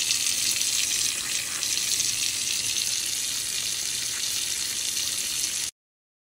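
Faucet running, its stream splashing onto a soaped wig in a stainless steel sink with a steady hiss. It cuts off abruptly near the end.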